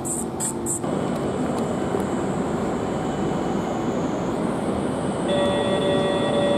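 Retro tram running slowly out of the station underpass: a steady rumble of wheels and street noise, with a held horn note sounding for about a second and a half near the end. A rapid high pulsing cuts off in the first second.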